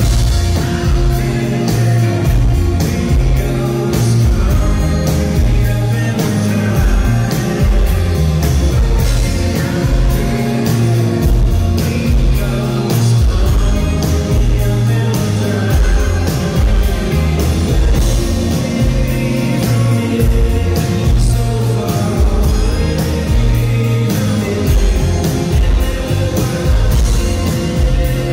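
Live rock band playing a song with a lead vocal, guitars and drums keeping a steady beat.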